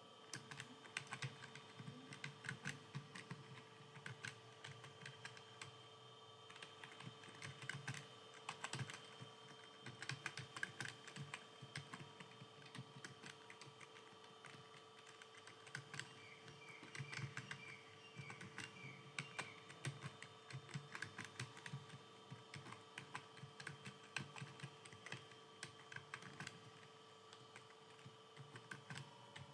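Computer keyboard being typed on continuously: a quick, irregular patter of key clicks that never stops for long, over a faint steady hum.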